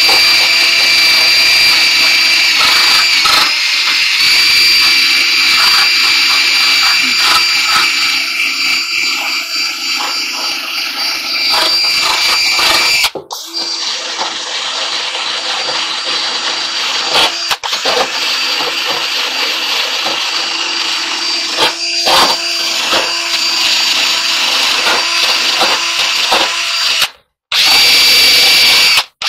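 Cordless 20-volt drill spinning a wire brush at high speed against the dryer's front panel, scrubbing off old door felt and rubbery glue: a steady high motor whine with scraping. It dips briefly about halfway through and cuts out twice near the end.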